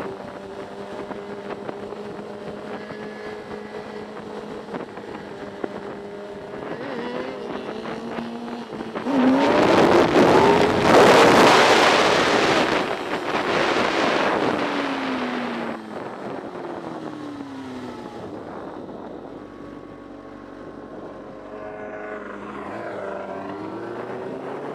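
Suzuki GSX-R600 sportbike's inline-four engine running steadily under way, then revving hard and loud for several seconds about nine seconds in with a rush of wind, before the engine pitch falls away as the bike slows; the revs climb again near the end.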